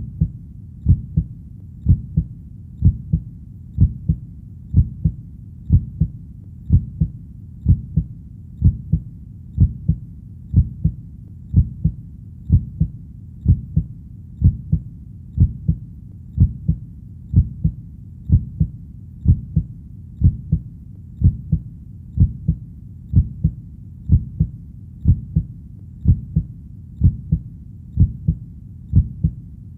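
Heartbeat: a steady lub-dub double thump repeating evenly about once a second, roughly 60 beats a minute. The thumps are low and muffled over a faint steady low rumble.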